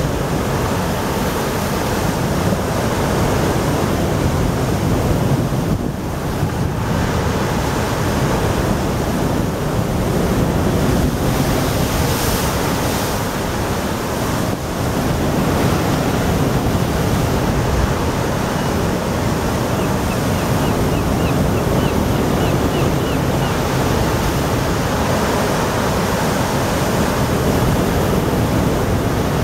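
Heavy storm surf breaking and surging against a concrete sea wall, loud and continuous, with gale-force wind buffeting the microphone.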